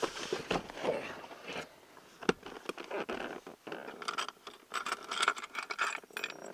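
Rummaging in a pickup truck's fold-down centre console: the lid is lifted and hard plastic and loose items click, scrape and rustle. Near the end a set of keys clinks as it is picked out.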